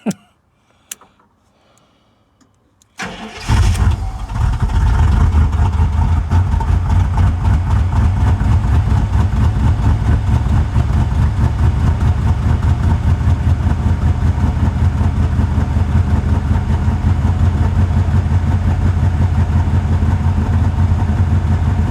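A faint click, then about three seconds in an SUV's engine catches and starts and settles into a loud, steady idle with an uneven pulse. The owner says it runs horribly like this and has been like that for ages.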